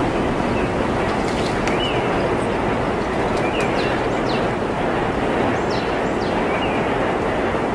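Steady rushing water noise, with faint short high chirps every second or two.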